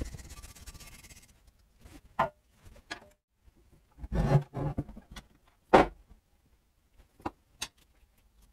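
A wire brush scrubbing the crankcase of a Kawasaki KM90 90cc engine for about the first second, then scattered knocks and clunks as the engine is handled and turned over on its wooden bench board, the loudest a single knock near the middle.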